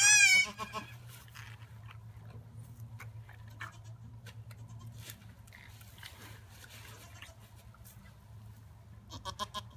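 A Nigerian Dwarf goat's loud bleat for about half a second at the start, then soft rustling of straw and handling of the wet newborn kid over a faint steady hum. A short fast pulsing sound comes near the end.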